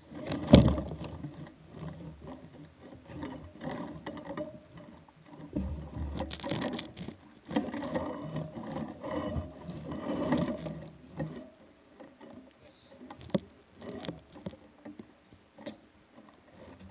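Wind gusting over an action camera's microphone: irregular rumbling buffets that swell and drop, strongest about half a second in and easing in the later seconds.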